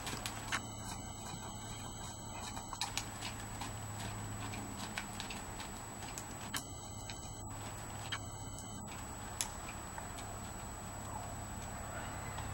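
Hoofbeats of a grey horse cantering on soft arena footing, heard as a string of small irregular clicks over a steady low background hum.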